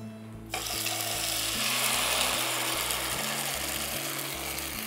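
Wet ground cassava paste hitting hot ghee in a pan, bursting into a sizzle about half a second in and then frying steadily.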